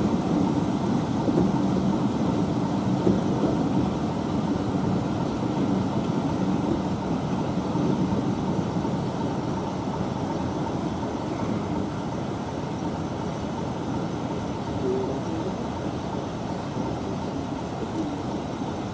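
Heritage train coaches running steadily on the rails around a curve, heard from an open carriage window: a continuous rumble of wheels and running gear that eases off slightly toward the end.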